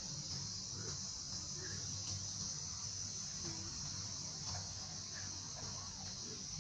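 Steady, high-pitched chorus of insects, such as crickets or cicadas, droning without a break.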